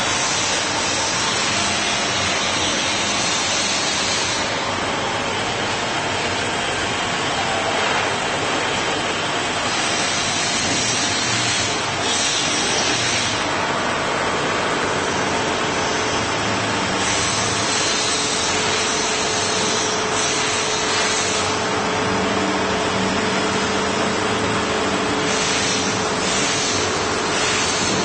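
A 1000 mm automatic knife grinder running: a steady mechanical noise of grinding, with a higher hiss that swells and fades every few seconds.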